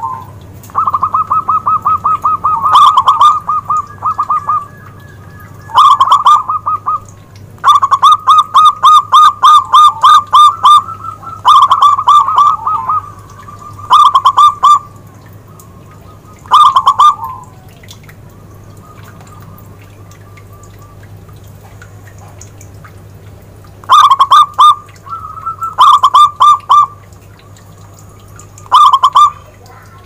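Zebra dove (perkutut) singing: bouts of rapid staccato cooing notes, several a second, repeated after short pauses, over a faint steady low hum.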